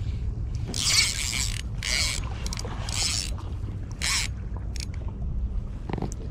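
Spinning reel being wound in short spells, giving a whirring mechanical sound in four or five brief bursts about a second apart, over a steady low rumble.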